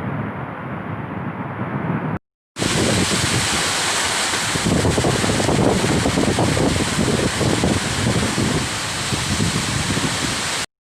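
Recorded rain: a dull, muffled rush of rain, then a brief cut to silence about two seconds in, followed by a brighter, steady hiss of rain.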